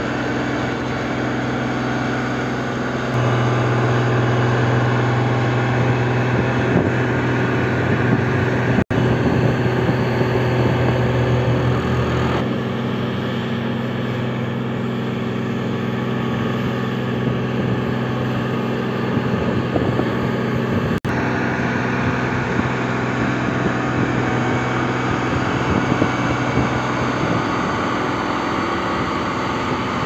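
Ingersoll Rand single-drum road roller's diesel engine running steadily as the machine rolls over a gravel road base, growing louder a few seconds in. The sound cuts out briefly twice.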